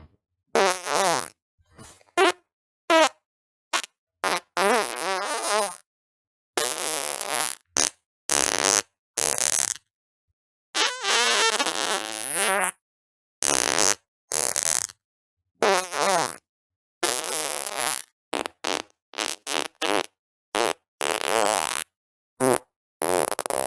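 A rapid string of more than twenty separate farts with dead silence between them. They range from short pops to long buzzing ones of a second or two whose pitch wavers up and down.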